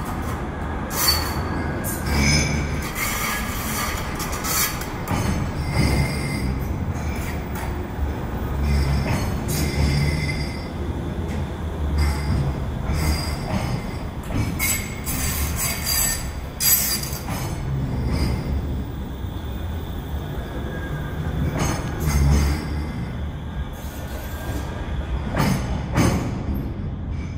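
Manchester Metrolink M5000 tram running slowly past on curved track in a tunnel: a low rumble with its wheels squealing on the rails and sharp clanks now and then.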